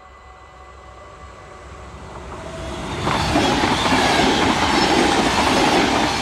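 NS double-deck electric passenger train approaching and running past a level crossing. It grows louder over the first three seconds, then passes close by at full loudness as a dense rushing and rumbling of wheels on track.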